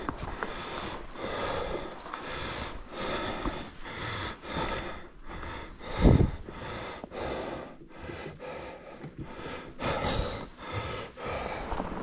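A fat-bike rider's breathing over the noise of riding a snowy trail, with a loud thump about six seconds in as the bike jolts over a bump.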